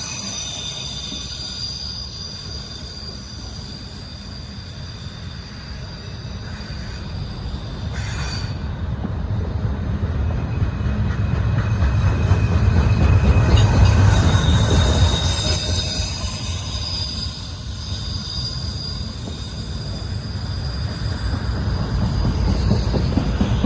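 Freight train rolling by, its steel wheels squealing in several thin high-pitched tones over a low rumble. The rumble grows to its loudest about halfway through, then eases and builds again.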